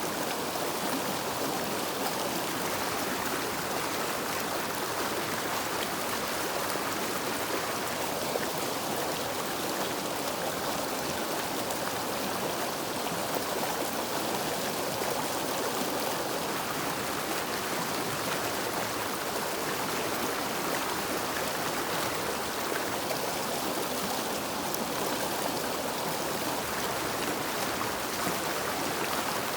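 Wild river water rushing steadily over rocks, an even flowing hiss with no change.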